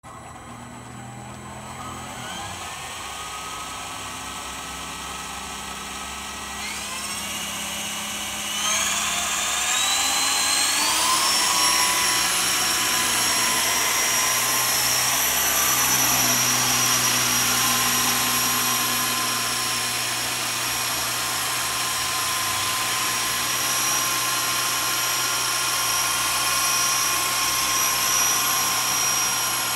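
Walkera Lama 400 coaxial electric RC helicopter spooling up: its motor and rotor whine climbs in pitch in steps over the first ten seconds or so and grows louder. It then holds a steady high whine in flight.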